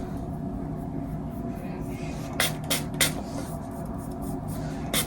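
A hand spray bottle spritzing in short bursts: three quick sprays about halfway through and one more near the end, over a low steady room hum.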